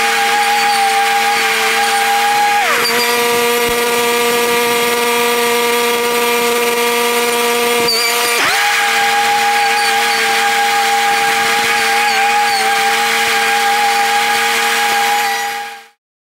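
Small gas engine of a dethatching machine running steadily. Its pitch drops about three seconds in and comes back up about halfway through.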